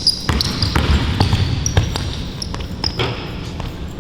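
Basketball bouncing hard on a court during one-on-one play: a run of sharp bounces in the first two seconds, with short high sneaker squeaks in between.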